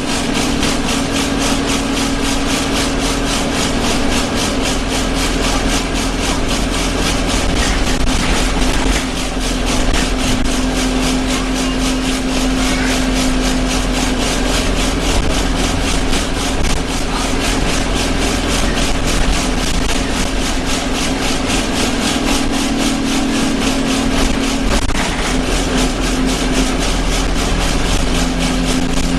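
Alexander Dennis Enviro 200 single-deck bus heard from inside while running: a steady engine drone under a loud, fast buzzing rattle of the bus's body and fittings vibrating.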